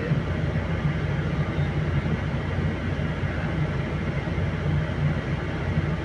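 Diesel engine of a Volvo crawler excavator running steadily with a low drone as the machine works its tracks slowly up onto a narrow trailer ramp.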